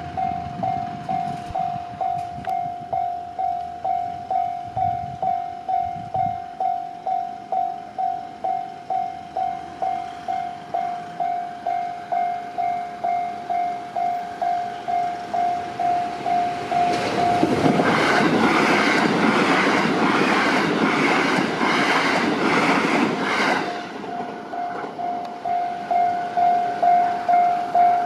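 Japanese level-crossing alarm ringing at about two dings a second. About 17 seconds in, a train passes, its wheels clattering rhythmically over the rail joints and drowning out the bell for some six seconds before the ringing comes back.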